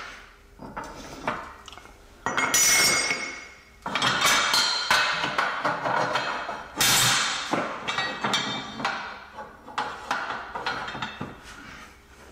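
Steel sockets, cups and tools clanking and clinking against each other, with several loud metallic clatters that ring on briefly, and lighter clinks between them.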